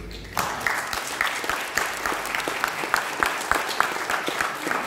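Audience applauding, breaking out about half a second in, with one nearby pair of hands standing out at about three claps a second.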